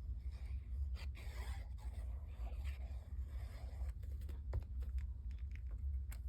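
Paper and cardstock being handled and pressed into place on a work surface: irregular rustling and scraping with a few sharp taps, over a steady low hum.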